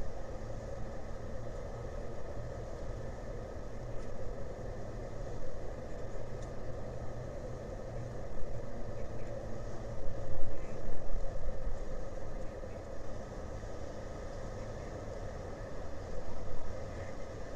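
Steady low engine drone, swelling louder about eight seconds in and again for a couple of seconds around ten seconds in.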